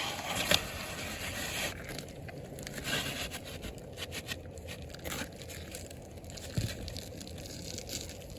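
Asphalt shingles scraping and crinkling as they are lifted and worked during nailing, with scattered sharp clicks and a low knock later on.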